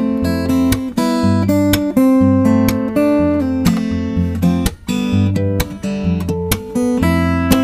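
Background music: an acoustic guitar strumming chords that change about every half second.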